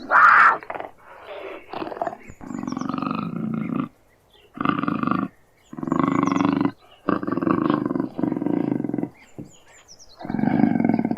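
Puma (cougar) growling and snarling: a sharp, loud snarl at the start, then a series of rough, rasping growls of a second or two each, separated by short pauses.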